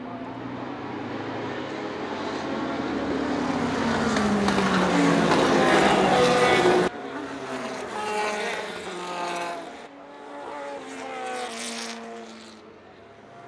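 Historic racing-car engines at full racing speed. A pack of cars grows steadily louder for about seven seconds, then the sound cuts abruptly to a car accelerating away, its engine note climbing again and again through the gears as it fades.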